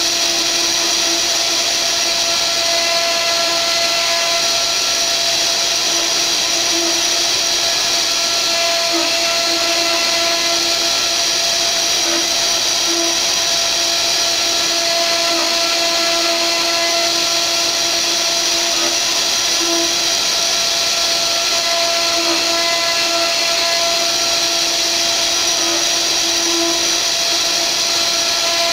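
Mini CNC router's spindle running steadily while its small tapered carving bit mills a relief into a wooden board: a constant high-pitched whine with cutting noise, a lower hum wavering slightly in strength as the bit's load changes.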